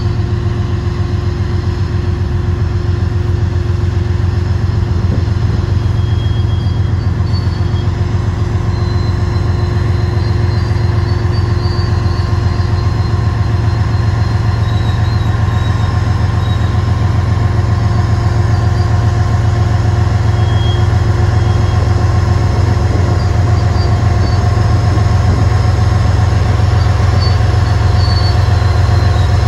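Diesel locomotive of a freight train running steadily, a loud low rumble with a steady engine drone that slowly gets louder.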